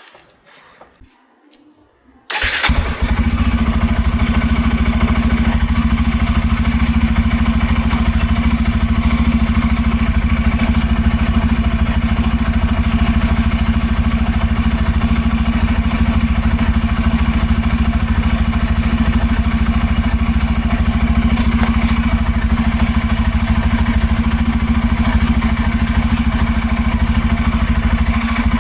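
Bajaj Pulsar N250's single-cylinder engine starts about two seconds in and then runs steadily.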